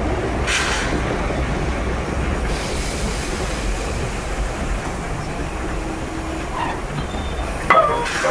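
Steady low rumble of a slow heritage train rolling along the rails, heard from on board. A few brief rattles and hisses break in, and a sharper clank comes near the end.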